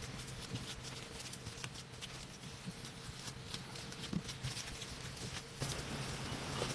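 Irregular light taps and clicks over a faint steady hum.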